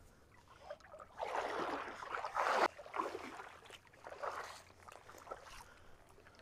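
Shallow surf washing in, several swells of water noise, the biggest about a second in that cuts off sharply, then smaller washes.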